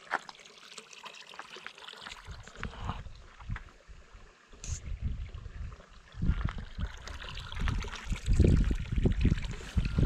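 Rubbing and movement noise on a chest-mounted GoPro: scattered clicks and rustling, then irregular low thuds that grow louder from about six seconds in.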